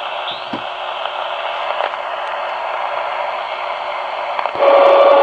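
A CB radio's speaker gives a steady, loud hiss of interference noise on AM reception: the PLC (power-line communication) interference that blots out the channel. Near the end the noise gets louder and a steady whistle tone joins it.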